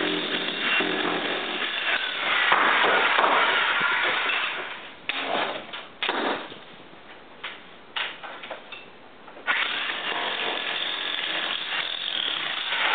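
Handheld electric jackhammer chiselling brick and mortar off a fireplace facade. It runs for about five seconds, stops for a few seconds with a few sharp knocks in the pause, then starts hammering again about two-thirds of the way in.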